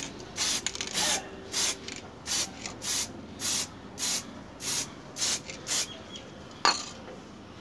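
Aerosol spray paint can sprayed in about ten short bursts, roughly two a second, each a brief high hiss, followed by a single sharp click near the end.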